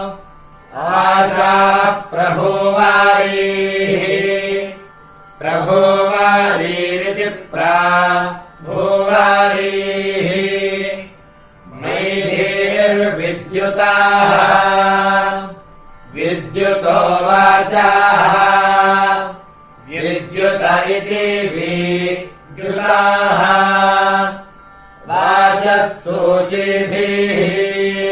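Vedic chanting: a Sanskrit recitation on a steady pitch, delivered in short phrases of one to three seconds, each followed by a brief pause for breath.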